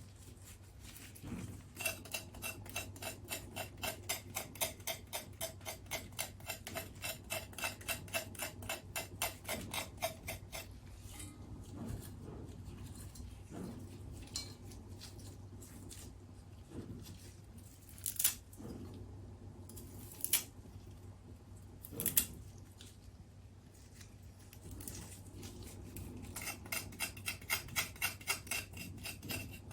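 Quick, even strokes of a metal kitchen tool, about three or four a second, in two long runs with a slight ring to each stroke. Between the runs come quieter handling sounds and three sharp knocks. This is the sound of shepherd's purse being trimmed for stew.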